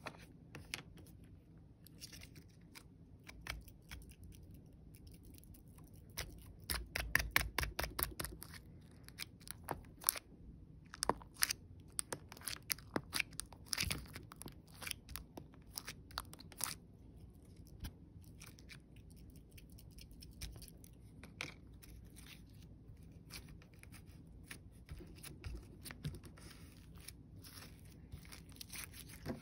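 Glitter slime being squished and pressed by hand, giving sharp crackling pops and clicks. A quick run of pops comes about seven seconds in, with frequent pops through the middle and fewer near the end.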